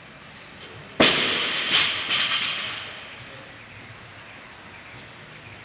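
Loaded barbell with bumper plates dropped from overhead onto a rubber gym floor: a loud crash about a second in, then two more bounces and a rattle that dies away over about two seconds.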